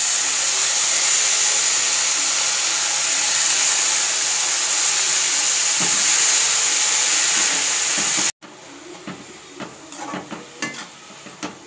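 Chopped flat beans (avarakkai) sizzling in hot oil in a metal kadai: a loud, steady hiss. About eight seconds in it cuts off abruptly, and what follows is quieter scraping and clinking of a perforated metal spatula stirring the beans against the pan.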